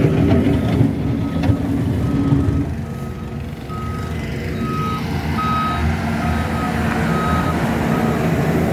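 Reversing alarm of a heavy construction machine beeping steadily, a bit faster than once a second, over the machine's diesel engine running. The engine sound drops for a moment around the middle, then comes back.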